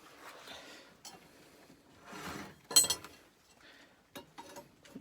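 Metal objects being handled and knocked together: light clicks and rustling, then one sharp ringing metallic clink about three seconds in.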